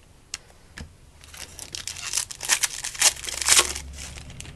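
Crinkling and rustling of a foil trading-card pack wrapper being handled and torn, with a couple of light clicks in the first second.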